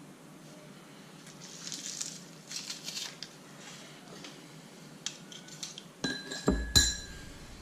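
Kitchen dish and utensils being handled: light scraping about two to three seconds in, then a few sharp clinks near the end that ring briefly, the loudest about six and a half seconds in.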